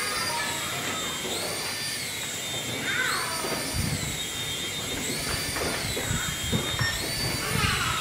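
Small toy RC helicopter's electric rotor motors whining, the high pitch rising and falling every second or two as it flies.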